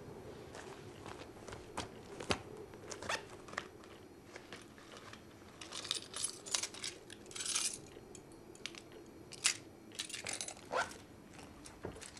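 A bunch of metal keys on a ring jingling and clinking as they are pulled out of a leather jacket, with soft rustling of the leather. Scattered small clicks throughout, with two busier spells of jingling, about halfway through and again near the end.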